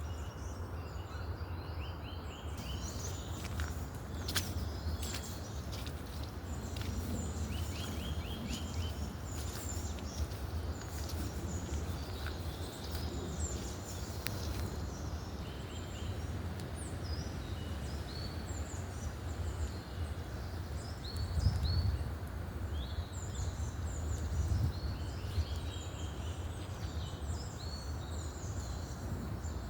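Several woodland songbirds singing and calling at once in short chirps and trills, over a steady low rumble that swells briefly a little past the middle.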